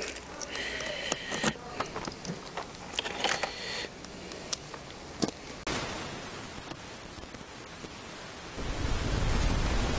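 Keys jangling and the latch of a plastic motorcycle top box clicking as it is unlocked and opened, followed by paper rustling. An even hiss comes in suddenly about halfway through, and a low rumble builds near the end.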